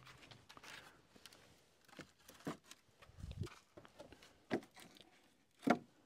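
Wooden sawmill slab offcuts being laid onto a stack, knocking against each other in scattered light clunks, with a duller thud about three seconds in and the loudest knock near the end.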